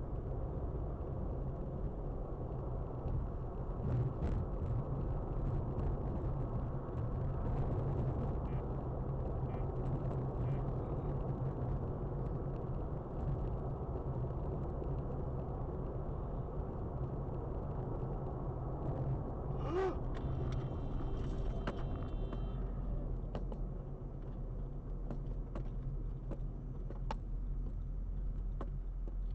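Steady road and engine rumble of a car driving at highway speed, heard from inside the cabin. About two-thirds of the way through there is a sharp click and a short high tone.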